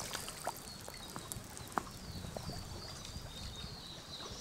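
Quiet river water flowing around a wading angler, with a few faint scattered clicks and a thin, wavering high tone in the background.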